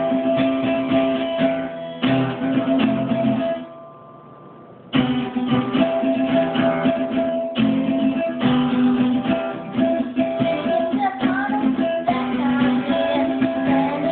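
Acoustic guitar strummed in chords, breaking off briefly about four seconds in and then picking up again. Near the end, a girl's voice comes in singing over the strumming.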